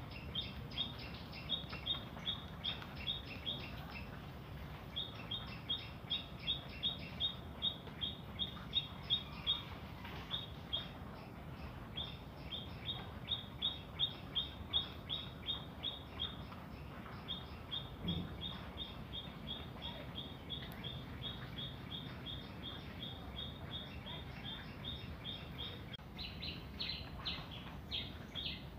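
A small bird calling outside, a short, sharp high chirp repeated about three times a second in long runs with brief pauses, over a low steady room hiss.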